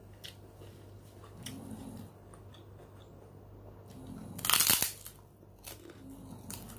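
Crisp kerupuk cracker bitten off and crunched, with one loud crackling crunch about four and a half seconds in and a few smaller crunches from chewing around it.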